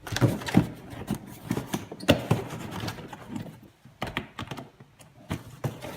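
Cardboard shelf and tabs being pushed, folded and slid into slots: a run of irregular light knocks, taps and scrapes, quieter for a moment past the halfway point.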